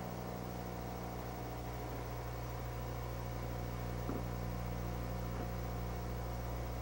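Steady low electrical hum with hiss from an old videotape recording. There is a faint soft rustle about four seconds in.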